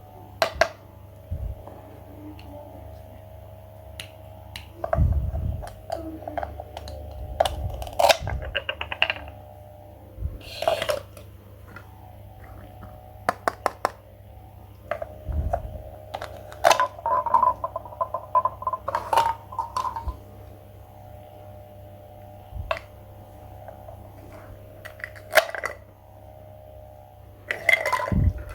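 Scattered clicks, taps and knocks of small hard objects being handled, over a steady low hum.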